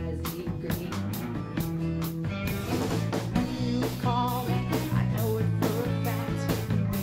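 Live rock band playing: a woman singing over strummed acoustic guitar, electric guitar and electric bass, with a steady beat.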